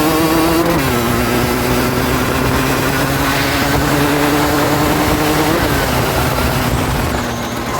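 Rieju Drac 50 moped's 50cc two-stroke engine running while ridden, its pitch stepping down about a second in and again near the end.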